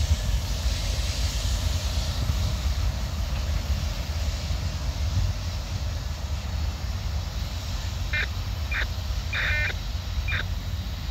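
Steady low rumble of the diesel locomotives leading an approaching BNSF grain train. Near the end a bird gives about five short calls.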